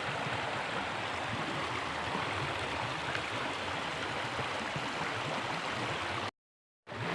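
River water flowing, a steady rushing. It cuts out completely for about half a second near the end.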